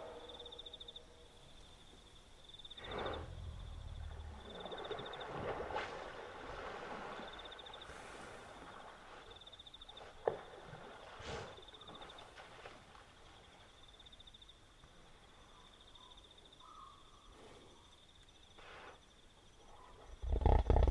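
Wild hippopotamuses by a river at night: faint, scattered hippo grunts over a high pulsed trill that repeats every second or two, then a loud hippo bellow starts right at the end.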